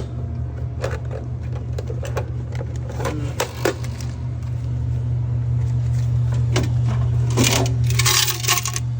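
Coins clinking and jingling as a drink vending machine's coin box is emptied, with scattered clinks and then a louder clatter of coins pouring near the end. A steady low hum runs underneath.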